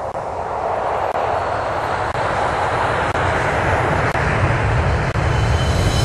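A steady rushing noise like wind or a distant jet, its low rumble growing louder toward the end, with a brief drop-out about once a second.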